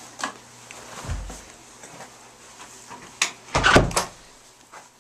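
A door being opened and shut: a click near the start, a dull thump about a second in, then a louder clatter and bang a little past three seconds.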